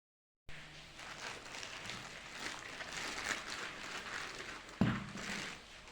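Crinkling and rustling of packaging being handled, with one thump a little before the end.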